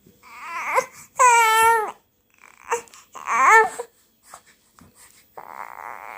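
Three-month-old baby cooing and babbling: a few short pitched calls that rise and fall, one held a little longer, then a breathy sound near the end.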